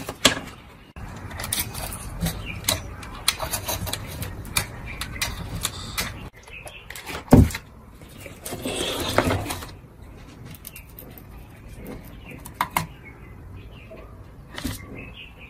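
Clicks, taps and knocks from a vintage Technics SU-7700 amplifier's circuit board and chassis being handled on a workbench. There is one loud knock about seven seconds in and a stretch of rustling and scraping around nine seconds.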